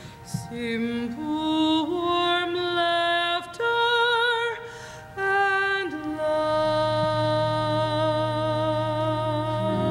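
A woman sings a slow solo melody with vibrato, moving from note to note and holding the last one. A low, steady accompaniment comes in under the held note about six and a half seconds in.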